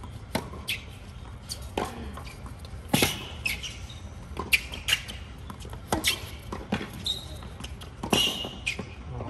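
Tennis rally on a hard court: sharp racket strikes and ball bounces at irregular intervals, the loudest about three seconds in, with a few short shoe squeaks on the court surface.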